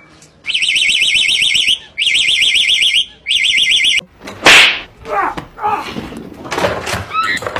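Three bursts of a fast-warbling, alarm-like electronic tone, each about a second long. About four and a half seconds in comes a sharp, loud cry, followed by a run of animal vocal cries that slide up and down in pitch.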